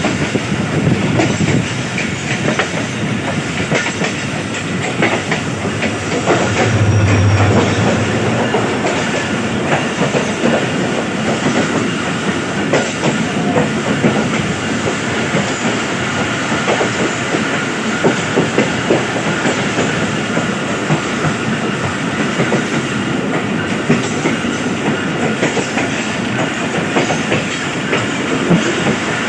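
Passenger train running at speed, heard from aboard: a steady rumble and rattle of the coaches with wheels clattering over the rail joints in irregular clicks and knocks. A brief low drone comes in about seven seconds in.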